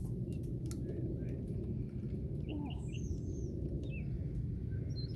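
Morning outdoor ambience: scattered short bird chirps over a steady low rumble, with a few faint clicks in the first second.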